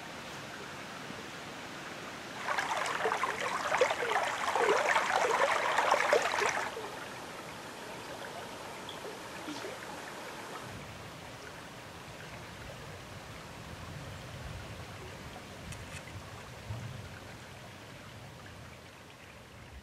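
River water running over a gravel riffle, a steady rushing, with a louder stretch of splashing water from a couple of seconds in that lasts about four seconds. The sound then changes abruptly to a softer run of water that fades out near the end.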